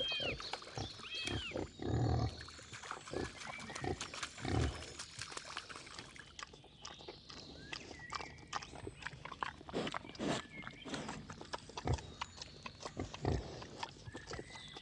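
Wild boar squealing and grunting at the start: piglets with high, arching squeals and adults with low grunts. After that comes quieter snuffling and rustling as the boar root through leaf litter and soil.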